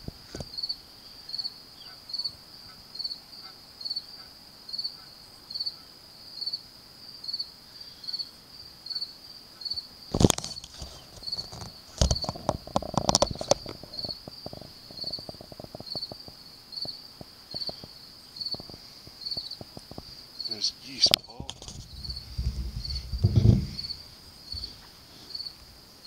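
A cricket chirping steadily, a little over one high chirp a second. Over it come a few louder honks from geese flying over, around ten to thirteen seconds in and again after twenty seconds.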